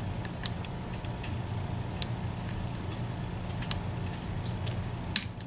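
Small metal clicks and ticks of a lock pick working the sliders inside an EVVA ICS lock, with four sharper clicks about one and a half seconds apart among fainter ticks, over a low steady hum.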